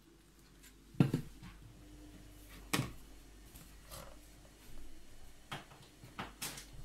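Kitchenware knocking on a counter: one sharp knock about a second in, a second one nearly two seconds later, then a few lighter taps and clatter near the end.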